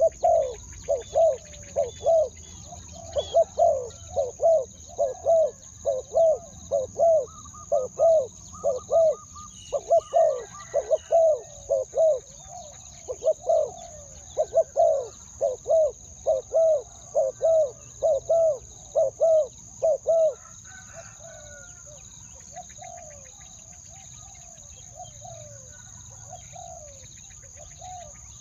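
Spotted dove cooing: a long run of repeated low, hooting coo phrases in quick groups, loud until about twenty seconds in, then fainter, sparser coos. A steady high insect drone runs underneath.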